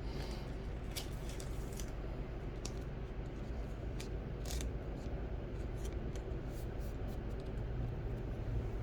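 Baseball trading cards being handled, with scattered crinkles and clicks of wrapping or sleeve material over a steady low hum.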